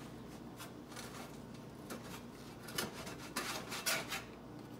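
Kitchen knife sawing through the baked biscuit-dough crust of a dough-wrapped cheeseburger: a few short, quiet rasping scrapes, most of them in the second half.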